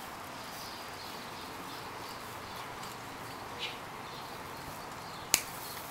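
One sharp snip of bonsai pruning shears cutting through a juniper branch about five seconds in, over a steady faint hiss.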